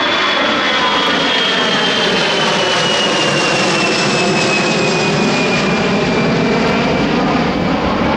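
Airbus A320's twin jet engines at takeoff power, just past overhead and climbing away: a loud steady roar with a high whine that slowly falls in pitch as the airliner recedes.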